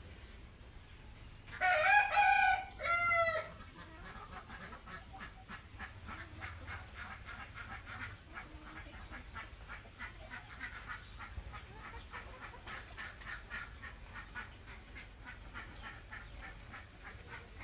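A rooster crows once, loudly, about two seconds in, its call in two parts with the last note falling. After the crow comes a long run of quiet, rapid clucking.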